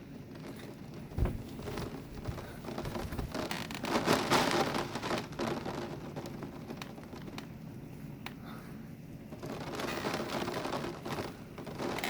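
Heavy rain of a gusty thunderstorm squall, the downpour surging loudest about four seconds in and again near the end. A single sharp thump about a second in.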